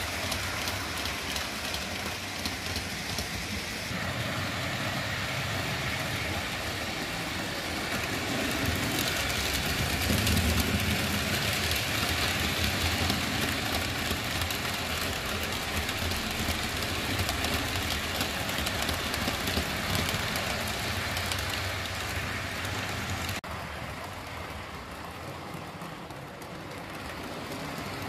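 HO-scale model trains running on an analogue DC layout: steady whir of the small electric motors mixed with wheel noise on the rails. About 23 seconds in the sound changes abruptly and becomes quieter.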